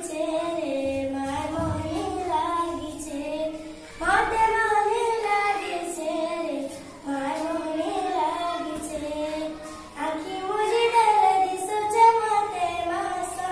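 A young girl singing a song solo and unaccompanied, in phrases of about three seconds, each starting fresh after a short pause for breath.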